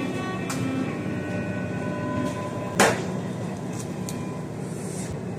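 Kitchen prep sounds over a steady low hum: a few light clicks and one sharp knock about three seconds in, as of something tapped hard on a bowl or counter.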